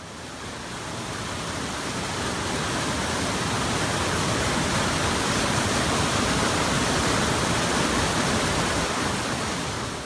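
Whitewater rapids pouring over rocks: a steady rush of water noise that fades in over the first few seconds and then holds level.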